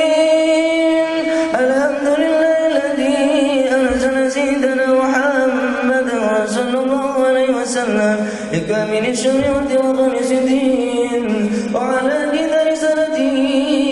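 Islamic devotional chant sung by voices holding long, wavering notes, the melody stepping to a new pitch every few seconds.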